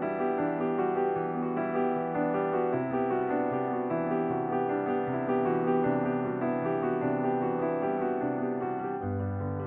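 Background piano music, a gentle melody of sustained notes with no speech.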